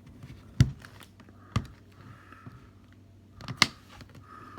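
Three sharp knocks of hard camera gear being handled and set down on a surface, spaced about a second and then two seconds apart, the first the loudest.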